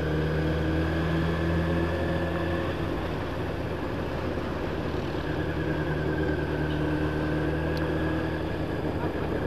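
Yamaha motorcycle engine running steadily at road speed, heard on board from the rider's position, with wind rush over it. The engine note softens briefly around the middle, then picks back up.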